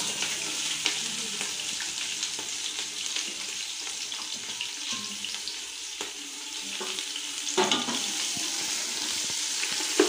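Sliced onions sizzling in hot oil with whole spices and green chillies in a metal pot as they are tipped in, a steady frying hiss with scattered small clicks. There is a louder clatter about 7.5 seconds in and a sharp knock at the very end as stirring begins.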